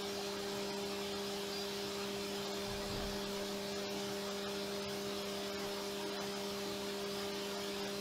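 CNC mill slotting titanium with a tiny 3/64-inch four-flute end mill under flood coolant: a steady hum from the spindle over an even hiss of coolant spray, with the cut itself faint enough that it is hard to hear.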